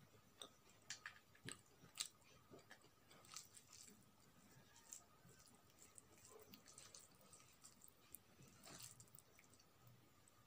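Faint wet squishing and clicking of fingers mixing rice and curry on a plate, with soft chewing, in a hand-eaten meal of rice, fish fry and curries.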